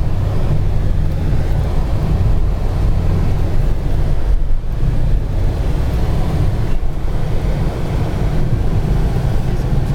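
Car driving on a winding road, heard from inside the cabin: a steady low engine drone with road noise.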